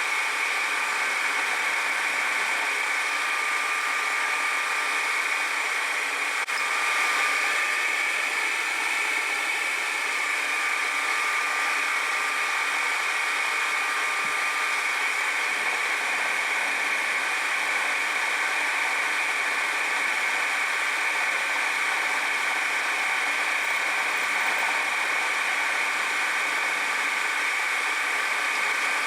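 Metal-working machine tool running steadily while cutting a gear tooth: a continuous whirring hiss with a faint steady whine.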